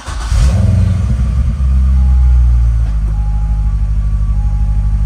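C6 Corvette's LS3 V8 firing on its first start after an oil change: it catches and revs up, then settles about a second and a half in into a steady, even idle. A faint beep repeats several times over the idle.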